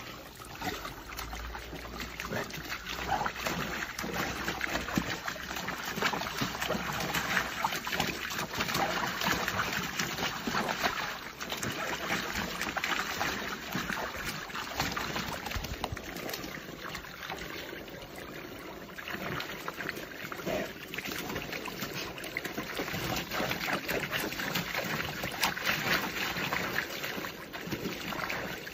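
Water jets from a splash-pad sprinkler mat spraying and splattering, with a dog splashing about in the shallow water: a continuous irregular splashing.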